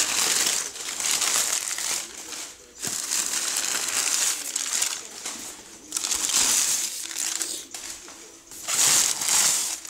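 Packaging from a boxed Hoover WindTunnel vacuum cleaner crinkling and rustling in repeated surges as it is unpacked by hand.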